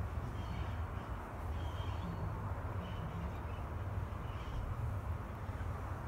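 Steady low outdoor rumble, with a few short high bird calls about once a second. The steam locomotive, moving slowly, is quiet, with no chuffing beat.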